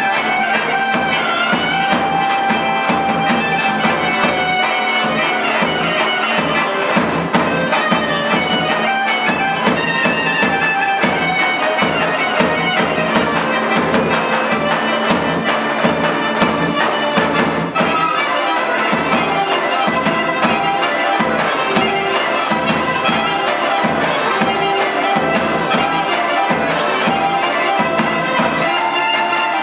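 Live folk dance music: a shrill reed wind instrument plays a continuous melody over the steady beat of a large double-headed tapan drum.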